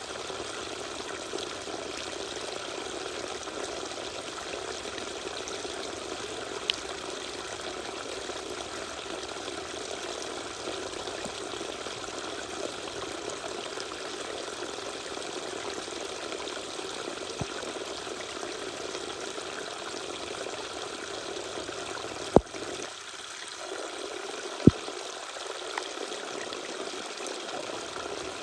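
Small waterfall: water pouring and splashing in a steady rush. Two sharp clicks stand out near the end, about two seconds apart.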